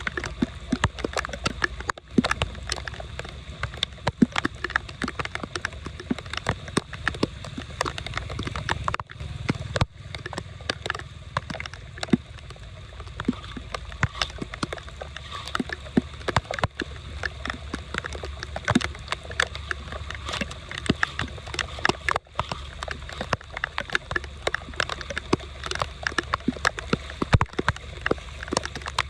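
Floodwater sloshing and gurgling as it drains through a cleared drain, with a steady low rush under many irregular sharp splashes and clicks.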